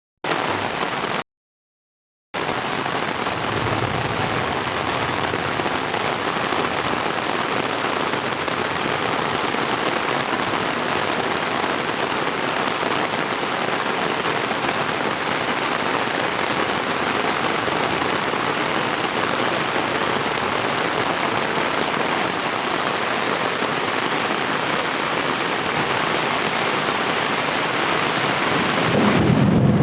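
Heavy rain falling steadily, an even hiss. It cuts out to complete silence for about a second near the start, then runs on unchanged.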